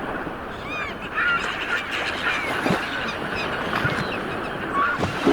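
Birds calling, a scatter of short chirps and honk-like calls over a steady background hiss.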